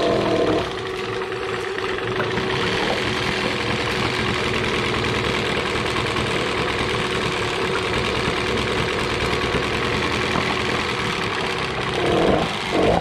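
1988 Yamaha 6 hp two-stroke outboard just started on choke: its pitch wavers and settles within the first second, then it idles steadily. Two short louder bursts come near the end.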